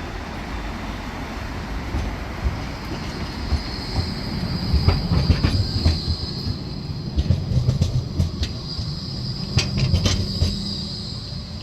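Modern tram running on its rails with a low rumble and a steady high wheel squeal, crossed by a few sharp clicks from the wheels passing over rail joints.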